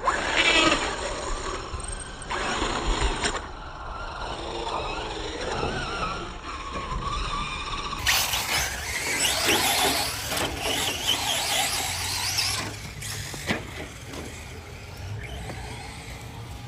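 Small electric RC cars running, with a high whine that rises and falls as they speed up and slow down. The sound changes abruptly about halfway through.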